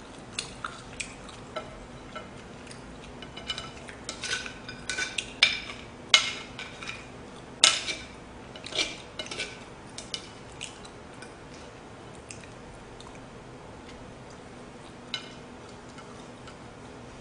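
A fork clicking and scraping against a plate and bowl in a run of sharp clinks, loudest about six and eight seconds in, then only one more click near the end.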